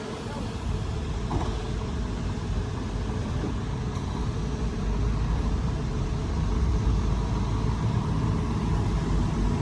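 Heavy diesel engine of earthmoving machinery running with a steady low rumble, getting louder about halfway through.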